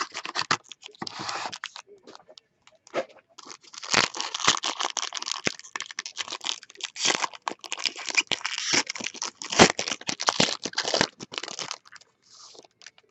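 A foil trading-card pack being torn open and crinkled: a dense crackling that runs for about eight seconds from about three and a half seconds in, after scattered light taps and rustles.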